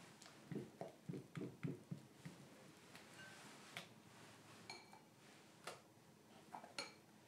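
Quiet strokes of a silicone spatula folding a soft white cream mixture in a glass bowl: a run of soft squelching strokes over the first two seconds, then a few light clinks of the spatula against the glass.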